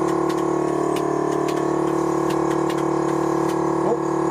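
Air-ride suspension compressor running steadily, a continuous even hum as it builds air pressure for the air suspension, with faint irregular clicks over it.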